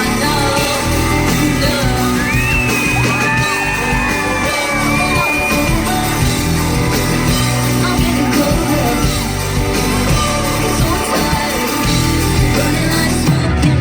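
Live pop band and lead singer performing a song, with a long held high vocal note a couple of seconds in. Audience members yell and shout along.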